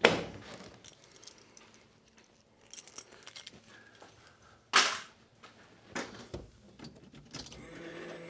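Keys jangling among a few clicks and clunks. Near the end, a Volvo electric power steering pump winds up into a steady electric hum.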